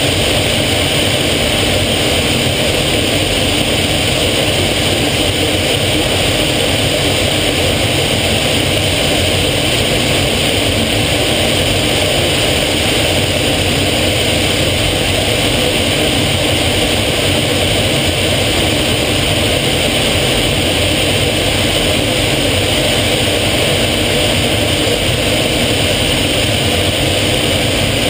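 Steady engine and airflow noise of an aircraft in flight, heard from inside the cockpit, unchanging throughout.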